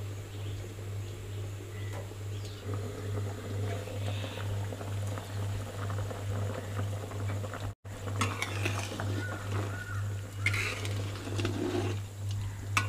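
Crab curry boiling in an aluminium kadai over a wood fire, bubbling with a fine crackle that gets busier about two thirds of the way through, over a steady low hum.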